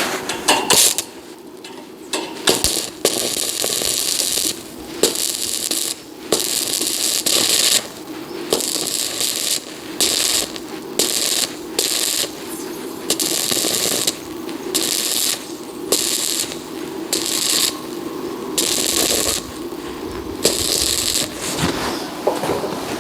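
Electric arc welding on thin sheet-metal roofing: a long series of short crackling bursts, each under two seconds, broken by brief pauses as the arc is struck and stopped again and again.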